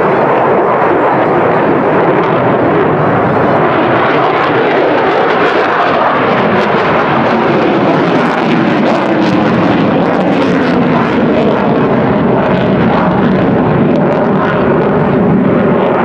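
F-35 fighter jet's single F135 afterburning turbofan engine as the jet flies past overhead: a loud, steady roar.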